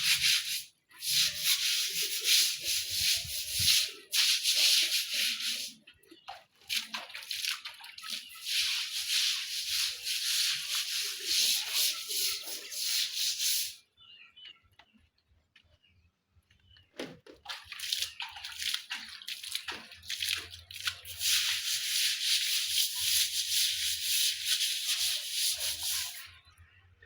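Stiff bristles scrubbing a floor in rapid strokes during a kitchen cleaning. The scrubbing comes in three long bouts, with a short pause about six seconds in and a longer pause around the middle.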